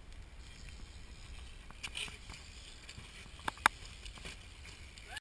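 BMX bike riding up onto a wall: a steady low rumble with scattered light knocks, then two sharp knocks in quick succession a little past halfway as the tyres strike the wall.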